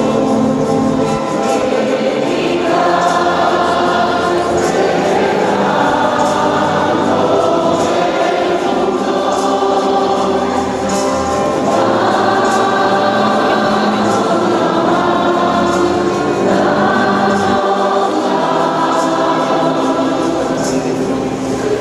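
Church choir singing a hymn during Mass, several voices holding long sustained notes.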